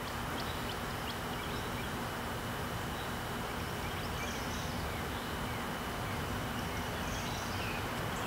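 Evening outdoor ambience: a steady hiss and low rumble of distant traffic under a constant thin high tone, with a few short bird chirps about four and seven seconds in.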